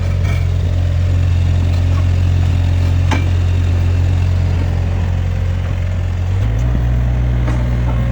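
Mustang 2044 skid steer's diesel engine running steadily. Its note shifts slightly about six seconds in, and there is a single short click about three seconds in.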